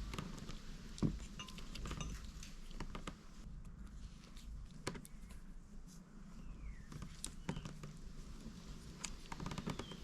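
Scattered light clicks and taps of small plastic and metal parts as a car wiper switch is taken apart by hand, over a low steady background hum.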